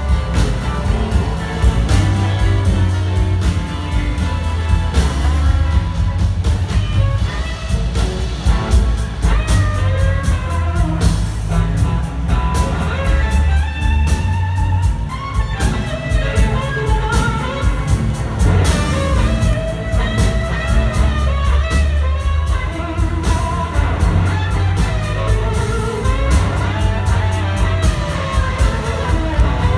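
Electric blues band playing live, a blues standard: electric guitar lead lines over bass and a drum kit, heard from the audience.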